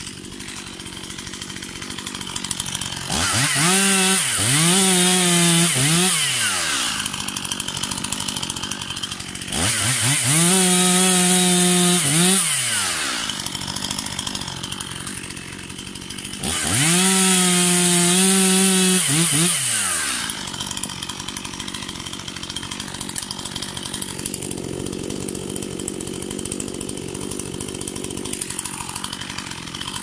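Stihl MS 241 two-stroke chainsaw opened up to full throttle three times, about seven seconds apart, each for a few seconds as it cuts through a fallen tree trunk. It drops back to a lower steady running sound between cuts and after the last one.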